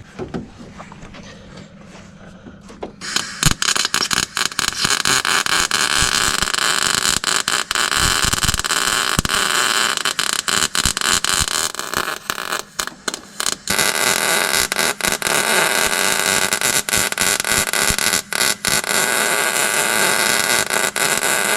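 Arc welding of a steel engine mount to the frame: a loud, steady crackling hiss starts about three seconds in. It breaks off briefly a few times, as the arc stops and restarts.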